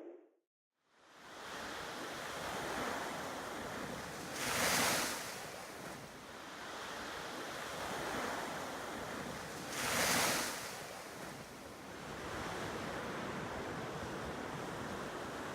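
Waves washing steadily, with two bigger waves breaking about 5 and 10 seconds in, and some wind on the microphone. The sound fades in after a second of silence.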